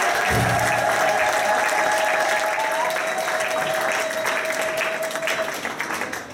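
A congregation applauding as a worship song ends, over a single held musical note that stops about five and a half seconds in. The clapping then fades away.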